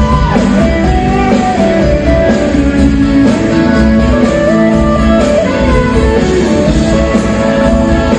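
Live rock band playing an instrumental passage, led by an electric guitar melody with bent, sliding notes.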